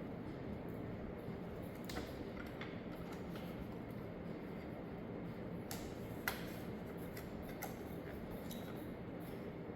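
A few light clicks over a steady low hum, the sharpest about six seconds in.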